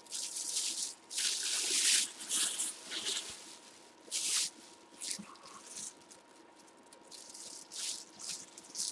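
Plastic and cloth bags rustling and crinkling as they are handled around a football helmet, in short irregular spells.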